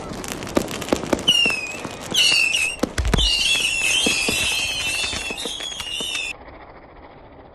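Firecrackers going off: a run of sharp crackling pops, then shrill, wavering whistles from whistling fireworks, with one heavy bang about three seconds in. The whistling cuts off suddenly a little after six seconds.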